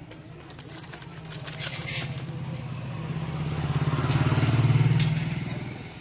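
A motorcycle passing by: a low, rapidly pulsing engine note that swells, is loudest about four to five seconds in, then fades away near the end.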